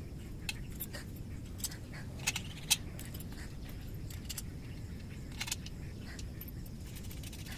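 Scattered light metallic clicks and clinks of a spanner and a nut and bolt against the thin painted steel mounting strips of a 2-foot satellite dish as a bolt is fitted, the sharpest two about two and a half seconds in. A steady low rumble runs underneath.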